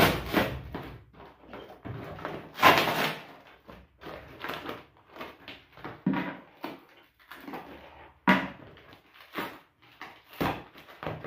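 Plastic wrap and brown packing tape being torn and crinkled by hand as a heavily wrapped parcel is opened. Irregular rustling and ripping, loudest about a quarter of the way in and again about three-quarters through.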